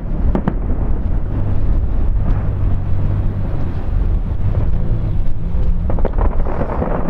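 Distant aerial fireworks display: shell bursts merging into a continuous low rumble, with a few sharper cracks near the start and again around six seconds in.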